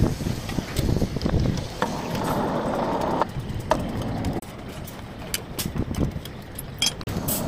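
Rebar bending machine running, its turntable swinging round to bend a bundle of steel bars against the pins, with scattered clanks and knocks of steel. A denser mechanical run stops abruptly a little past three seconds in, and the noise is lower after about four seconds.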